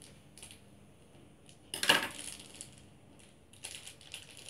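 Small plastic toy packaging being handled and worked open by hand: light clicks and crinkles, with one sharper crackle about two seconds in and a few quick clicks near the end.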